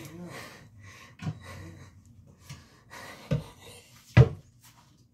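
A short wavering whine at the start, then three sharp knocks, the loudest about four seconds in.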